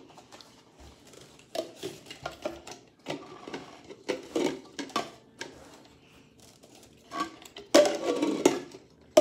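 Red plastic party cups being set down and handled on a countertop: a run of light, irregular plastic clacks and taps, with a louder burst of handling about eight seconds in.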